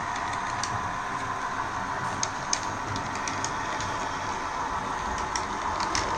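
OO gauge model of an NI Railways multiple unit running along the track: a steady motor hum with scattered sharp clicks.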